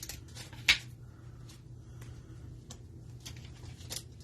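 Trading cards being handled and flipped through, giving soft clicks and brushing sounds, one sharper click a little under a second in, over a steady low hum.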